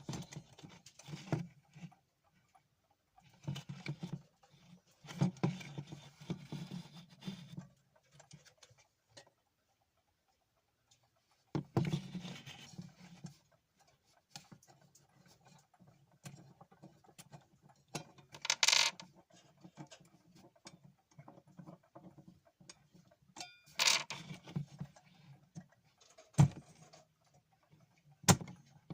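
Soviet Yantar wind-up alarm clock being handled: intermittent rattling, scraping and clicking of its case and mechanism, with two short, sharp clatters later on and single clicks near the end.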